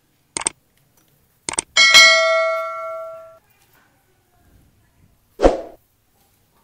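Subscribe-button animation sound effects: two quick mouse clicks, then a notification bell dings and rings out for about a second and a half, fading. A short thump follows about five and a half seconds in.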